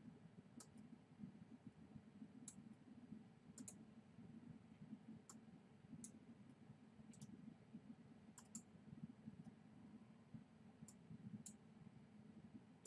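Faint computer mouse clicks, about a dozen at irregular intervals, over a low steady hum of room tone.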